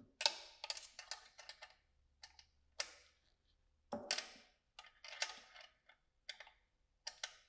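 Faint runs of sharp metallic clicking and rattling from a hand tool working the screws of the exhaust silencer bracket on a BMW R1300GS, in short irregular bursts with brief pauses between them.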